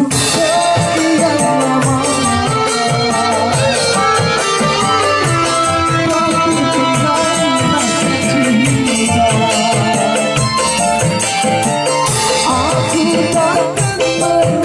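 Live band music from an electronic keyboard and kendang hand drums, with fast, regular rattling percussion and a singer's voice wavering over it.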